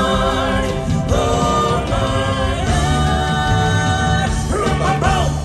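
Live band and group of singers performing, with long held sung notes over the band; the music stops right at the end.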